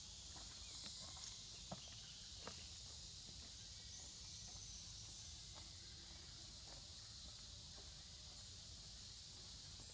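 Faint tropical forest ambience: a steady high insect drone, with a few small clicks and rustles, the sharpest about a second and a half in.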